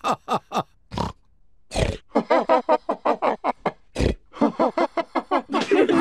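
Cartoon pigs laughing in quick repeated 'ha-ha' bursts, broken by loud pig snorts about a second in, just before two seconds and at four seconds.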